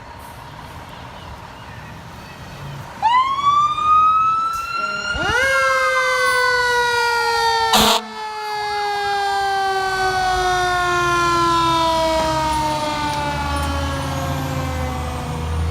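Fire apparatus siren winding up sharply about three seconds in, a second rise about two seconds later, then sliding slowly down in pitch as it winds down over the next ten seconds. A low engine rumble from the passing fire engine grows in the second half.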